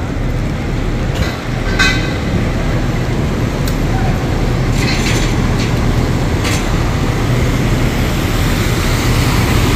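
Road traffic on a rain-wet street: vehicle engines running with a steady low rumble under a constant hiss, with a few brief clicks.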